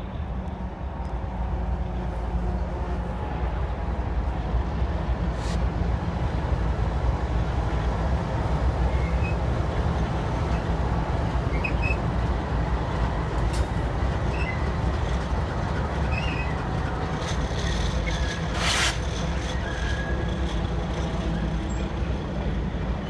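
Canadian Pacific freight train passing close by: diesel locomotives running with a heavy low rumble that swells in the first few seconds, then covered hopper cars rolling past on the rails. A few short high squeaks and one sharp burst of noise about three-quarters through.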